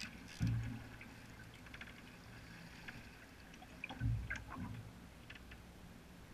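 Canoe paddle dipping and pulling through calm lake water, with drips and small splashes. Two dull low thumps, about half a second in and about four seconds in.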